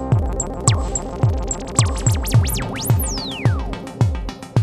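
Moog Werkstatt-01 analog synthesizer playing an electronic track. A synthesized kick drum beats about twice a second under a steady synth tone, with fast pitch sweeps rising and falling in the middle and one long falling sweep about three seconds in.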